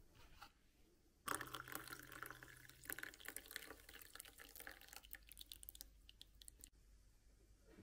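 Coffee poured from a French press into a ceramic mug: a liquid splashing and trickling that starts suddenly about a second in, eases off, and stops near the end.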